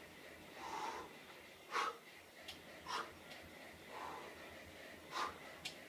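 A man breathing hard through a set of pull-ups: forceful breaths in and out, about one a second, some as sharp puffs and some as longer whooshes.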